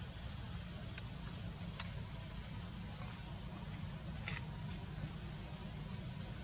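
Outdoor forest ambience: a steady high-pitched insect drone over a constant low rumble, with a few faint clicks.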